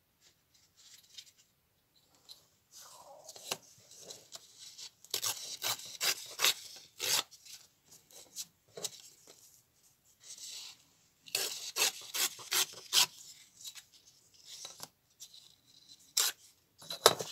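Old book-page paper being torn along the edge of a steel ruler, in several groups of short rasping pulls.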